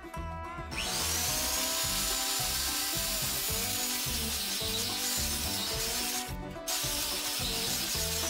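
Electric angle grinder with a cut-off wheel spinning up about a second in and cutting steel, a steady high whine over a hiss, with a brief break before it resumes near the end. Background music with a steady beat underneath.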